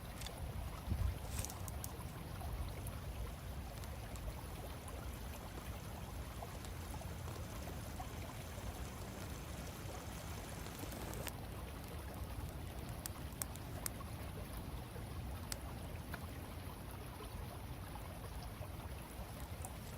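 Steady rushing noise with a few scattered sharp clicks.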